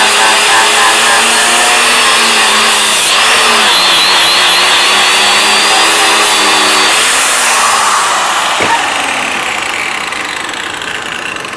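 Angle grinder fitted with a stripping disc running against a steel bar, stripping mill scale off the rolled steel; its pitch dips as the disc is loaded. About seven seconds in it is switched off and winds down with a falling whine.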